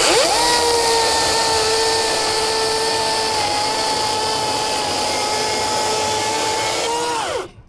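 EGO 16-inch battery-powered chainsaw spinning up with a quick rising whine, running at a steady high whine while cutting wood, its pitch sagging slightly under load, then winding down with a falling whine near the end.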